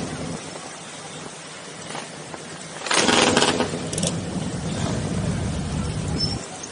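Motorcycle engines running. About three seconds in they get suddenly louder, then they run on steadily until shortly before the end.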